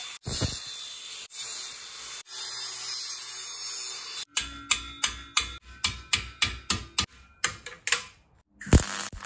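An angle grinder grinds the curved end of a steel flat bar in short bursts. It is followed by a quick run of sharp metallic knocks, about three a second, that ring. A single louder knock and a further burst of noise come near the end.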